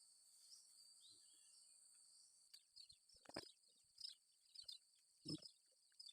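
Near silence with faint, steady insect chirring, and a few faint scattered clicks and knocks in the second half.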